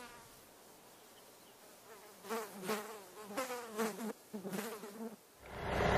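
Flies buzzing in several short spells with a wavering pitch. A loud, steady rushing noise cuts in near the end.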